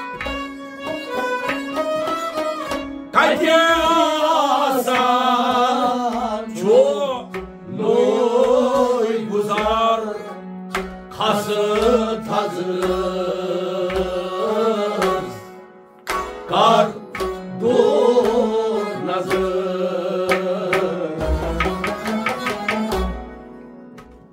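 Kashmiri Sufi song: a male voice singing wavering melodic lines over steady hand strokes on a clay pot drum (noot), with a bowed string instrument accompanying. The singing starts a few seconds in and pauses briefly around the middle.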